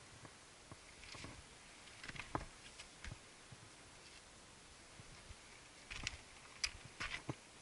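Hiking boots stepping over loose rock and stone on a rocky trail: irregular clicks, scrapes and knocks of stone underfoot, with a few louder ones near the end.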